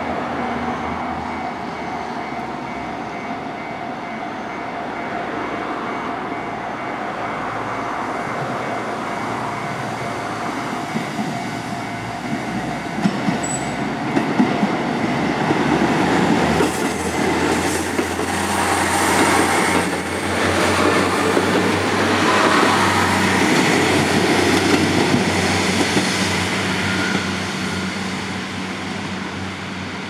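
JR Central KiHa 11 series diesel railcars passing over a level crossing: the railcars' diesel engines drone and the wheels clack over the rail joints, loudest through the middle and second half, then fading near the end. The crossing's warning bell rings steadily throughout.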